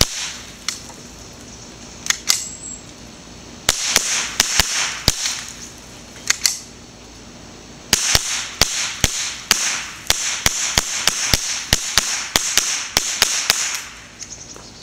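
Ruger 10/22 semi-automatic .22 LR rifle firing Remington subsonic rounds, each shot a sharp pop. About ten shots come scattered over the first seven seconds, then a rapid string of well over a dozen shots follows from about eight seconds in until just before the end.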